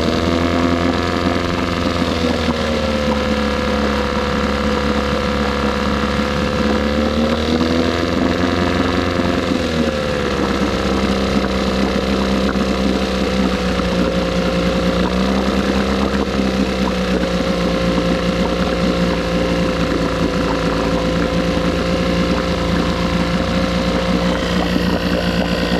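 A 1976 Johnson 6 hp two-stroke twin outboard running. Its speed dips and rises as the throttle is moved, then drops about ten seconds in and settles into a lower, steady idle after its idle jet was cleaned and set.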